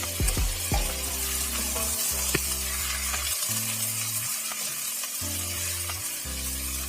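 Fried chicken pieces sizzling in butter in a hot pan as they are stirred, a steady hiss.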